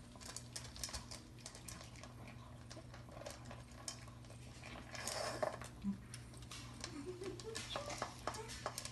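Pets eating dog food from a bowl: a scattered run of small crunches and clicks of the food and the bowl, growing busier about halfway through.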